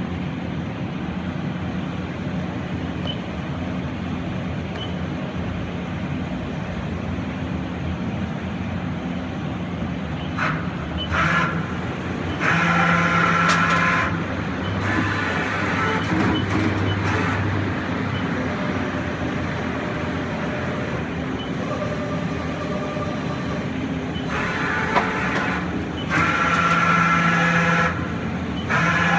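A 1993 Mori Seiki MV-Junior CNC vertical machining center, powered up, giving a steady machine hum. From about halfway there are several louder whining bursts, each one to three seconds long.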